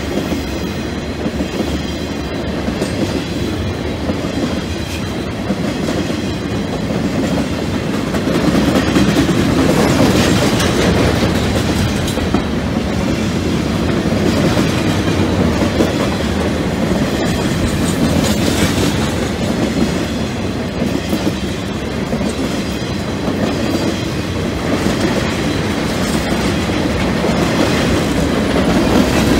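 An empty continuous welded rail train's rack flatcars rolling past: a steady rumble of steel wheels on the rails, with scattered clicking and clacking.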